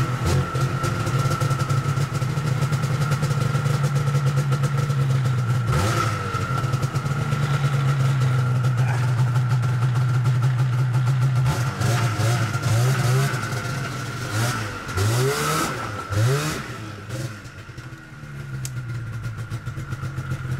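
Snowmobile engine idling steadily after a pull start, then blipped several times in quick rising-and-falling revs about two thirds of the way through, dropping quieter before settling back to idle.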